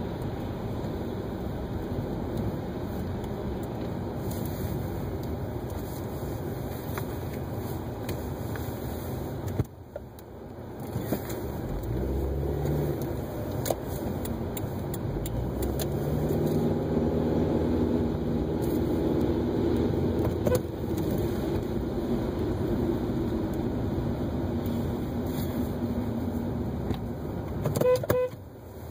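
Car interior road noise while driving on wet city pavement: steady tyre hiss and engine hum, swelling in the middle of the stretch, with a few short toots near the end.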